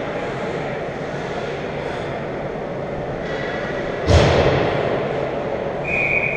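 Ice hockey game ambience in an arena: a steady hollow rumble of the rink. About four seconds in comes one loud bang that rings on through the building, like an impact on the boards. Near the end a referee's whistle gives one short, steady blast.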